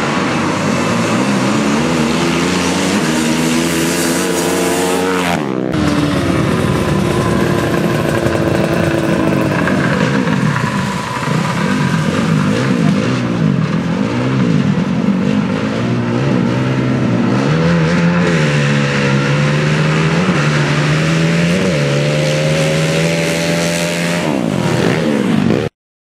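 Sport ATV engines revving hard and accelerating as quads launch down a sand drag strip, their pitch climbing. After a cut, engines hold steady high revs, then climb again before the sound cuts off suddenly near the end.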